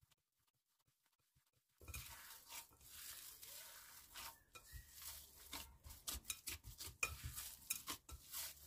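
Soft oil-and-flour dough being mixed and gathered together in a bowl: faint irregular scraping with small clicks against the bowl, starting about two seconds in.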